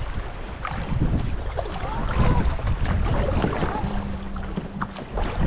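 Wind rumbling on the microphone while kayaking on open water, with scattered short splashes and knocks around the kayak. A brief low steady hum comes about four seconds in.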